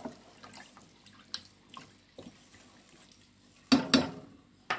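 Wooden spatula stirring raw chicken necks and gizzards in a little water in an enamel pot, making faint wet sounds and small clicks. Near the end come two loud knocks close together as the spatula strikes the pot.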